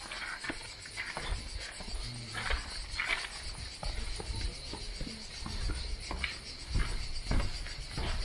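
A steady high-pitched insect chorus in the background, with irregular light knocks and taps over it.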